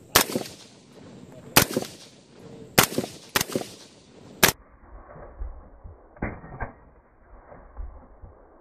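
Suppressed short-barrelled AR-15 (BCM 11.5-inch upper with an AAC suppressor) firing five sharp shots at an uneven pace, each with a brief echoing tail. About six seconds in come two much fainter, duller pops in quick succession.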